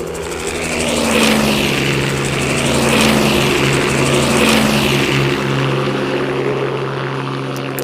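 A steady low mechanical drone, aircraft-like, under a dense hiss that swells about every one and a half seconds.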